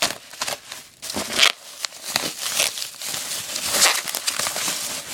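Packaging crinkling and rustling in quick, irregular bursts as a parcel holding leather welding gloves is unwrapped.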